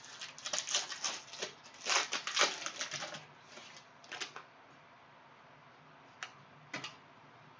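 Stiff Mosaic trading cards being flipped through and handled: a quick run of clicking and rustling for about three seconds, then a few single clicks.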